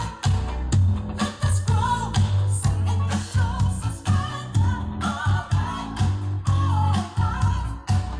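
Pop song with a singing voice and a heavy, steady bass line, played back through Bose Companion 2 Series III computer speakers with a Bose bass module.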